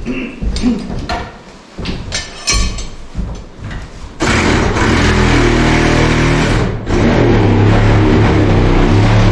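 A few knocks and taps, then from about four seconds in a loud power tool runs steadily, breaking off briefly near seven seconds before running on.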